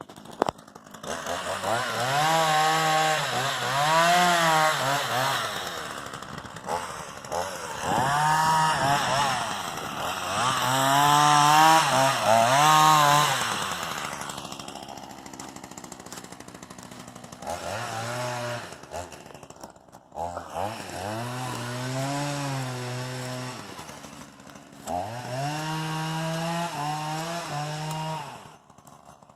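Two-stroke chainsaw running, revved up and eased off again and again, its engine pitch rising and falling in about six spells with quieter stretches between, then shutting off near the end.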